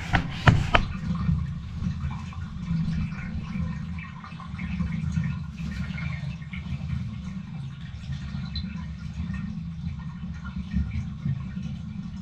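Water running and draining steadily down a bathtub drain, with a few sharp clicks in the first second.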